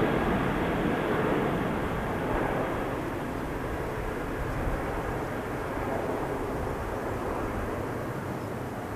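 Boeing 747-400D jumbo jet's four turbofan engines at takeoff power as the airliner climbs away, a steady jet rumble slowly fading.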